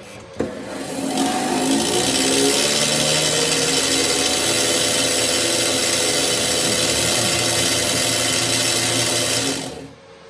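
Parkside portable metal band saw switched on: a click, then the motor and blade speed up over about two seconds and run steadily with no load, the blade held clear of the workpiece, until it is switched off near the end.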